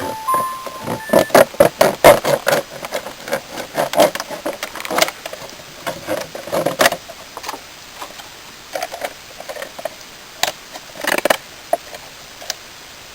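An irregular series of sharp clicks and short scrapes, coming close together for the first seven seconds or so, then only now and then.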